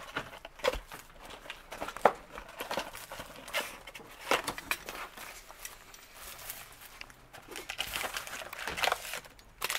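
Plastic shrink wrap crinkling and tearing as it is pulled off a cardboard trading-card box, then the box being opened and its foil packs handled: irregular crackles with a few sharper snaps.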